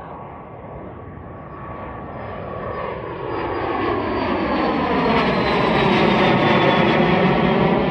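Cessna Citation XLS+ business jet's twin Pratt & Whitney PW545C turbofans at takeoff power, growing steadily louder as the jet approaches and passes. A thin high fan whine slowly falls in pitch as it goes by.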